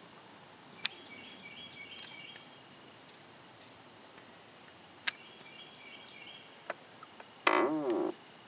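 A bird sings the same short trilled phrase twice, about four seconds apart, each time starting with a sharp note. Near the end there is a louder, lower-pitched call lasting about half a second.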